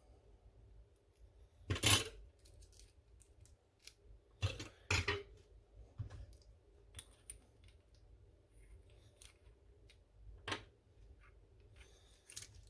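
Small metal lock parts clicking and clinking as a Nemef NF2 pin-tumbler lock is taken apart and its pins come out. There is a sharp click about 2 s in, two more around the middle, one near the end, and faint ticks between.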